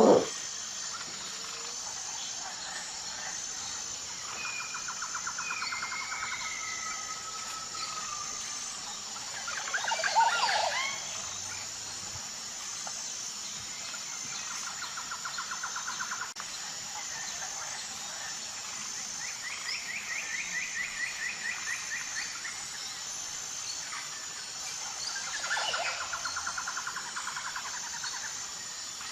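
Forest ambience: birds calling in turn with rapid trills and gliding whistles, the loudest a sharp call about ten seconds in. Underneath runs a steady high insect drone that pulses evenly.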